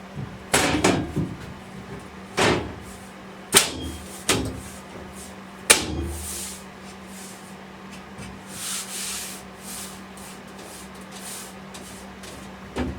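Workshop knocks and clunks of parts being handled: about five separate sharp knocks in the first six seconds and another near the end, with a few short soft swishes between, over a steady low hum.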